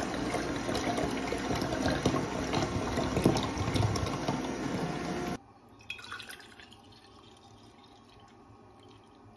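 Juice pouring from a slow juicer's spout into a plastic pitcher, a steady splashing stream. About five seconds in it cuts off suddenly to a much fainter pour of juice into a glass jar.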